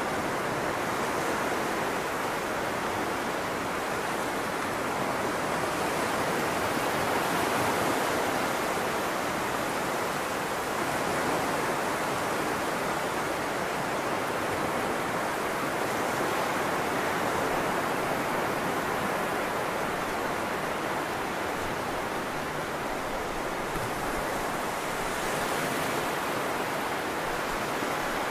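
Small waves breaking and washing up a flat sandy beach: a steady hiss of surf that swells gently every several seconds.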